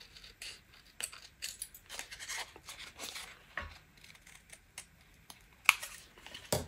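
Small scissors snipping through red paper: a series of short, irregular snips, the loudest near the end.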